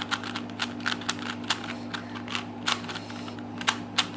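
Rubik's Cube being scrambled by hand: a quick, irregular run of plastic clicks and clacks as its layers are twisted.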